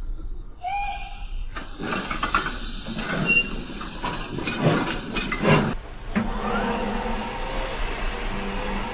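Digital sound of a model Dapol B4 tank engine, played through a small speaker: a brief whistle-like tone about a second in, then steam chuffs and hissing, settling into a steady hiss after about six seconds.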